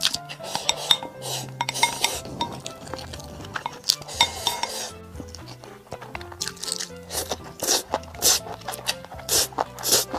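Background music with close-up eating sounds over it: repeated chewing and slurping noises, and chopsticks clicking against the dishes.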